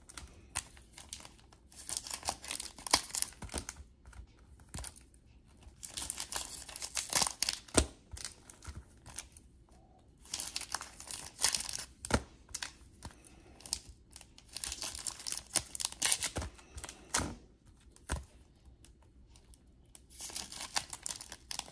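Bursts of paper crinkling, rustling and tearing from trading cards and their wax-paper pack wrappers being handled, with a few sharp taps of cards or a stack set down on the table.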